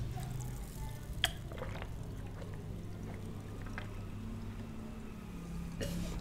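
A man drinking from a glass: faint sips and swallows, with a few small clicks, about a second in and again near four seconds.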